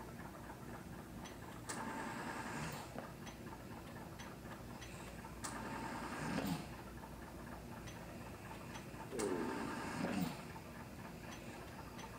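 A breathing machine cycling about every four seconds, each breath a short rise-and-fall whoosh, with light clicks between the breaths.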